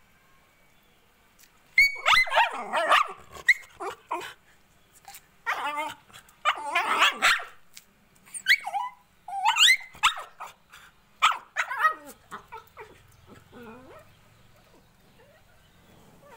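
Indian Spitz puppy crying: loud bouts of high, wavering yelps and whines, starting about two seconds in and tailing off into faint whimpers for the last few seconds.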